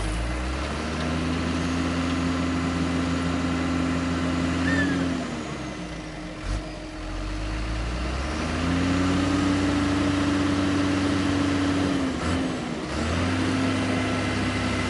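Dump truck's diesel engine revved up and held at raised speed three times, falling back toward idle for a couple of seconds between the first two surges and only briefly between the last two.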